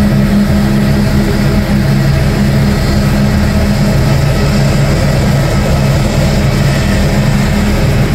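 Jet engines of an Airbus A320-family airliner running at taxi power as it rolls past, a loud, steady engine noise with a constant low hum.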